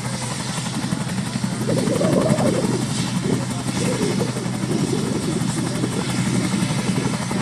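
An emergency medical helicopter runs on the ground ahead of take-off, giving a steady hum with its rotor turning.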